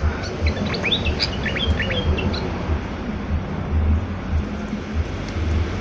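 Yellow-vented bulbul (trucukan) singing a quick run of short, bubbling notes in the first two and a half seconds, then falling silent, over a steady low rumble.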